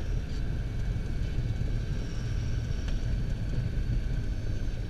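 Steady cabin noise of a Piper Aerostar twin rolling down the runway after landing: a continuous low rumble of the engines and the wheels on the pavement.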